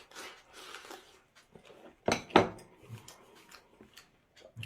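A person eating: mouth sounds and small clicks of utensils against a bowl, with two short louder mouth sounds about two seconds in.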